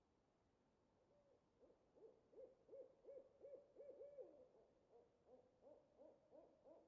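An owl hooting faintly: a quick series of short hoots, each rising and falling in pitch, about three a second. It starts about a second in and keeps going, with a brief pause around the middle.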